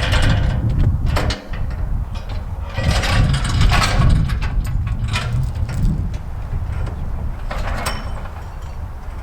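Diesel tractor engine running at low revs under a run of sharp metal clanks and rattles as the heavy sawmill head is set onto its steel track.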